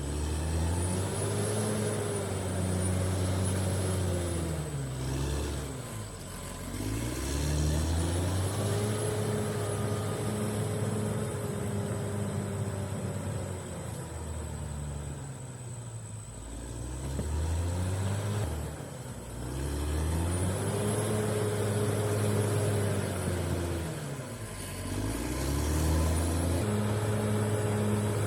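Caterpillar D6R XL bulldozer's diesel engine working, its pitch dropping and climbing back in repeated cycles about every six or seven seconds, with a faint high steady whine over it.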